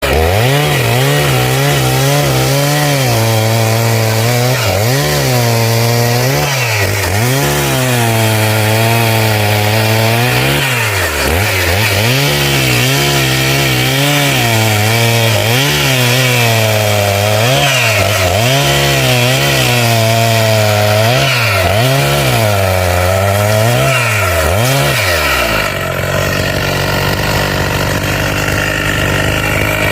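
Two-stroke chainsaw engine revved over and over, the pitch climbing and falling back toward idle every second or two, then settling to a low idle near the end.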